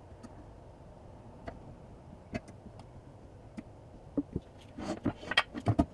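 Scattered light clicks and taps from soldering tools and the amplifier circuit board being handled on a workbench. They grow denser, with short scraping sounds, over the last two seconds.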